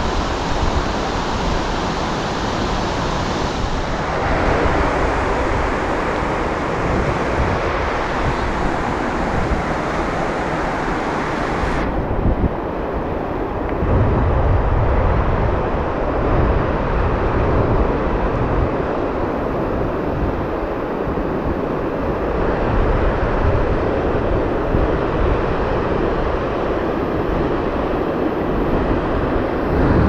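Water pouring steadily over a low concrete dam weir, a continuous rushing noise. It turns abruptly duller about twelve seconds in. A low rumble comes and goes underneath.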